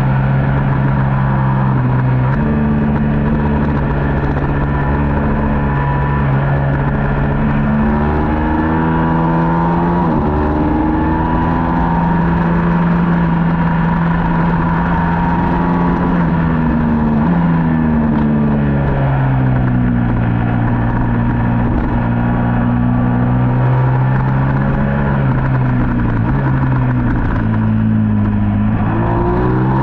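Middleweight superbike race motorcycle engine running hard at race pace, its pitch holding, then stepping and gliding up and down several times as it is shifted through the gears and backed off, over a continuous rush of wind and road noise.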